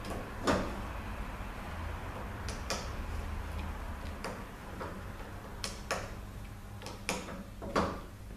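Irregular clicks and light knocks of small transmission valve body parts and tools being handled on a workbench, the loudest about half a second in and a few more close together near the end, over a steady low hum.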